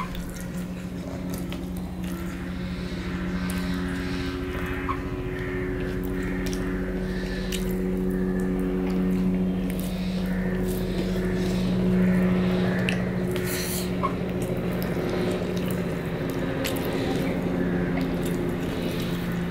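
Close-up eating sounds of a man chewing fried turmeric rice (bhat bhaja) eaten by hand, with wet mouth clicks and smacks and his fingers gathering rice on a steel plate. A steady low hum runs underneath.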